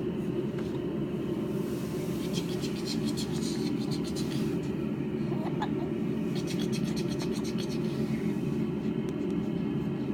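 A steady low rumble of background noise, with faint crackling rustles in two stretches and a brief small squeak about five and a half seconds in.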